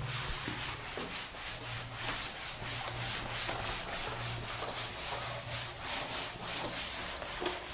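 Handwriting: a run of quick, scratchy rubbing strokes, with a faint low hum underneath.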